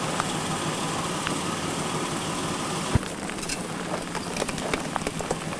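Nissan Pathfinder's engine running at low revs as it crawls over rocks. About three seconds in the sound changes abruptly to a quieter, more distant engine with scattered small clicks.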